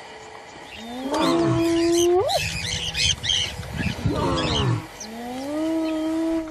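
Lions growling, with two long drawn-out bellowing calls that rise into a held tone; the first breaks sharply upward at its end, and the second runs on past the end. Rough low growling comes between the calls, with high squeals over the top.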